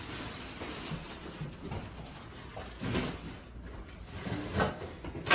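Scattered knocks and shuffling as people move about a room with their bags, ending in a sharp click, the loudest sound.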